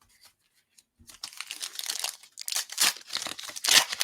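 A trading card pack wrapper being crinkled and torn open by hand. The crackling begins about a second in and comes in irregular spurts, loudest near the end.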